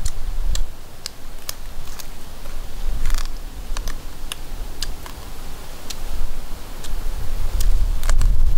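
Roasted quail being pulled apart and chewed: irregular crisp crackles and clicks, a few every second.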